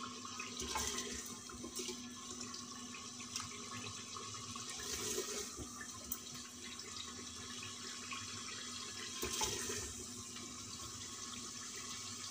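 Leftover gravy and oil sizzling and bubbling in a hot clay handi on a gas burner, a steady hiss, with a few light clicks and scrapes of the ladle as the curry is served into a glass bowl.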